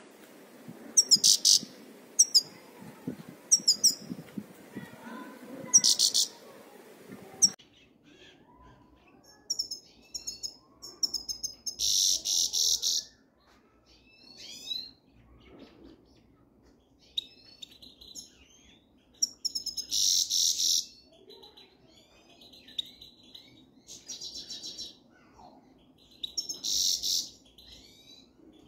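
Goldfinches calling: sharp, high chirps and twitters, with three louder bursts of rapid twittering song of about a second each, near the middle and toward the end. A low rustling of movement runs under the calls for the first several seconds.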